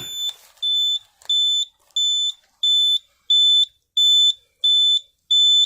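NOTIFIER NCA-2 fire alarm control panel's built-in sounder beeping steadily, a high-pitched beep about one and a half times a second. It is the panel's trouble signal for an NVRAM battery trouble, and it keeps going until the trouble is acknowledged.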